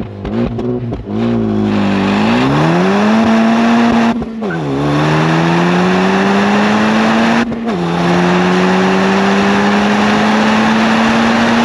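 The exhaust of a 2023 Honda Civic Type R's turbocharged four-cylinder engine, heard at the triple tailpipes under hard acceleration. The pitch climbs with the revs and breaks off in two quick upshifts, about four and about seven and a half seconds in, each dropping the pitch before it climbs again.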